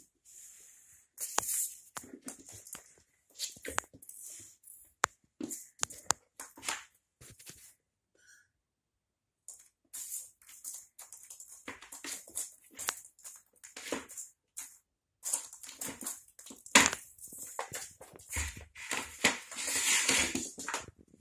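An empty plastic litter tray with a slatted grid insert, pawed and shoved around a laminate floor by a cat: irregular scrapes, rattles and knocks of plastic on the floor and paws scratching the grid. The sounds pause briefly about a third of the way in and are busiest near the end.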